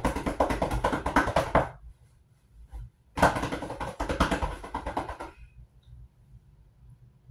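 Bedding being handled: two loud bursts of fabric rustling, about two seconds each, the second starting about three seconds in.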